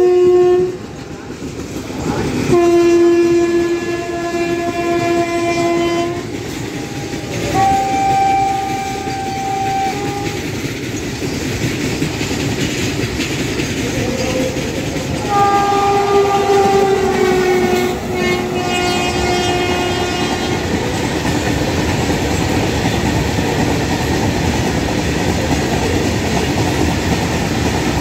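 Indian Railways WAG-9 electric freight locomotive horns sounding several long blasts in the first two-thirds, at a few different pitches, one sliding slightly lower. From there on comes the steady rumble and clickety-clack of a long freight train's wagons rolling past at speed.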